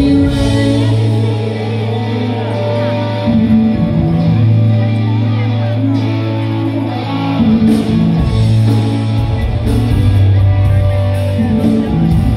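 A live rock band playing, with electric guitars, bass, drums and singing, heard from among the audience in a hall.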